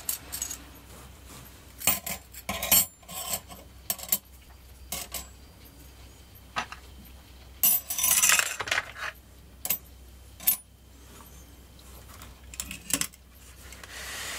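Steel bicycle cassette sprockets and spacers clinking as they are set one by one onto a scale: a string of sharp metal clinks, with a longer clattering rattle about eight seconds in.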